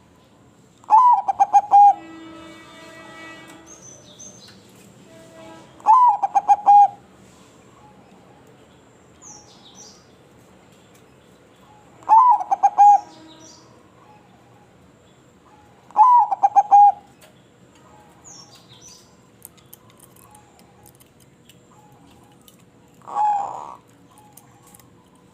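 Zebra dove cooing: four loud phrases a few seconds apart, each about a second of quick repeated notes, then a softer one near the end. Faint short high chirps come between the phrases.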